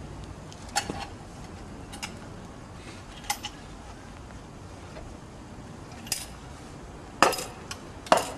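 Sharp metallic clinks and knocks as a small pneumatic wheel's metal hub is worked along a steel axle rod against a washer. The clinks come singly, about a second in and again after three seconds, then several louder ones close together near the end.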